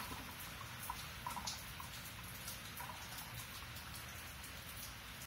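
Dark used engine oil pouring from a plastic bottle through a funnel into a canister: a faint, steady liquid trickle with a few soft drips.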